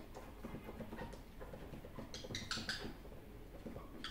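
Barraband parakeet (superb parrot) talking quietly to himself: a soft, rapid chattering of small clicks and mutters, broken around the middle by a quick run of three or four sharp, high chirps and one more near the end.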